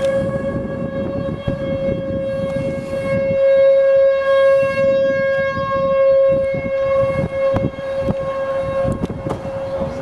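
Outdoor tornado warning siren sounding one long wail at a steady pitch, its loudness swelling and easing, loudest around the middle, over a low rushing background.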